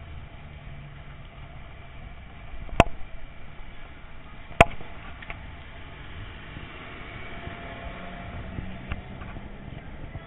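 Steady outdoor background noise with two sharp knocks, the first about three seconds in and the second under two seconds later.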